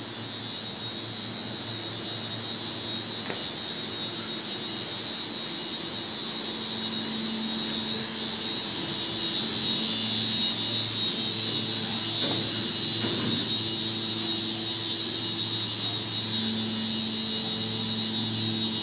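Plant-room machinery, chillers and pumps, running: a steady hum with a constant high whine, growing gradually louder.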